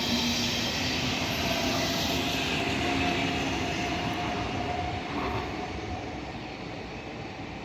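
A train running through the station: steady rolling noise with a faint whine, fading away as it moves off.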